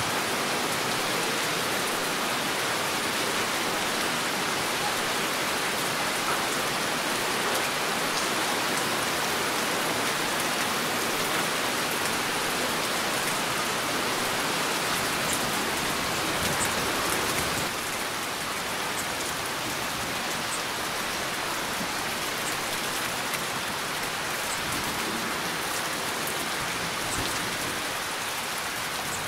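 Heavy rain falling steadily, a dense hiss with scattered individual drops ticking. It becomes slightly quieter about eighteen seconds in.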